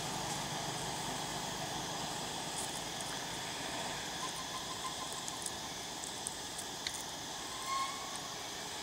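Steady outdoor insect chorus over a background hiss, with a few faint ticks and one short whistle-like note near the end.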